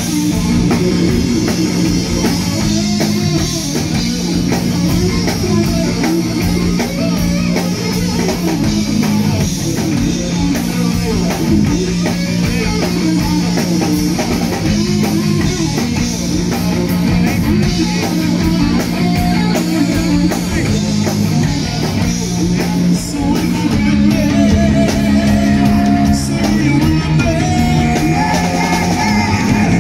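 Live rock band playing loudly: electric guitars, bass and a drum kit, with a man singing lead.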